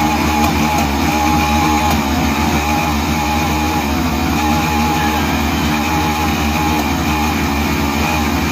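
Dirt bike engine running steadily with a slightly wavering note, the bike bogged down in loose soil and being ridden to get it out.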